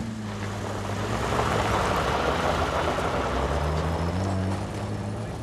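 Canvas-covered army truck's engine running, its pitch rising about four seconds in as it revs.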